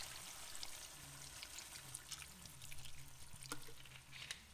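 Water poured from a plastic bottle into a hot pot of browned chicken and onions, with faint sizzling from the pan and a few small clicks near the end.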